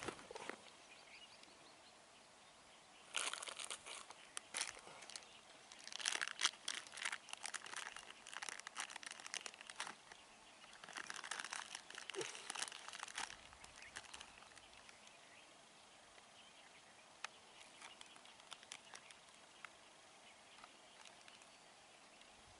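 Crinkling, crackling rustle close to the microphone in three bursts: a short one about three seconds in, a longer one from about six to ten seconds, and another around eleven to thirteen seconds. Scattered single clicks follow.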